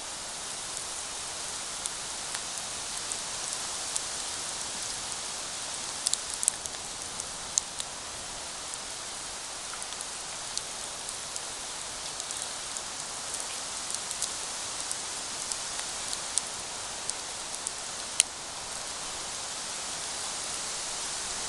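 Wood campfire burning: a steady hiss with scattered sharp crackles and pops, a cluster of them about six seconds in and one loud pop near the end.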